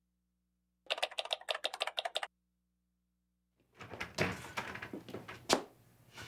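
A rapid run of typewriter key strikes lasting about a second and a half. About four seconds in, room noise starts with a few sharp knocks as a door is opened.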